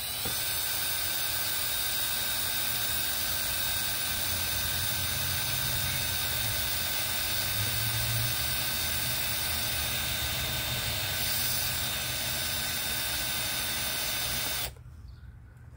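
Electric drill running steadily with a constant motor whine, boring a hanging hole through a wooden board, then stopping abruptly near the end.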